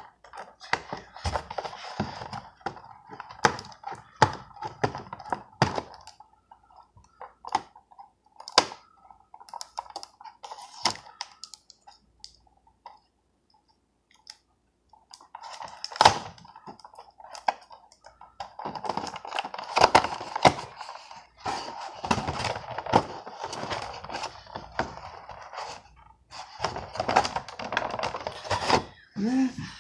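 Cardboard toy box being handled and opened by hand: scattered clicks, taps and crinkly rustling of the packaging, with a quiet pause of a few seconds about halfway through.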